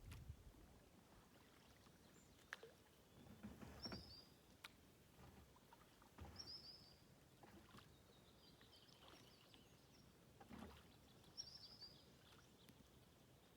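Quiet kayak paddling: soft splashes of the paddle in the water every few seconds, with a few light knocks. A small bird's brief, high chirping phrase repeats a few times.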